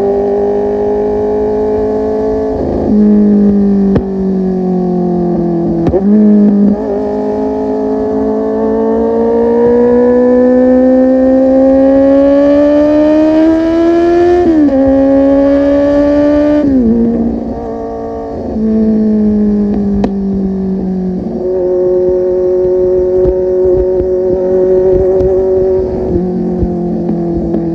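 Kawasaki Z800's inline-four engine on the move through a full-system aftermarket exhaust. It pulls through the gears with the pitch climbing steadily, dropping sharply at each shift, then eases off briefly before settling into a steady cruise near the end.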